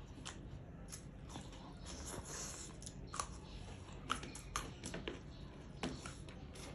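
Close-up mouth sounds of someone chewing and biting crunchy food, with a few sharp crunches standing out about three, four and six seconds in.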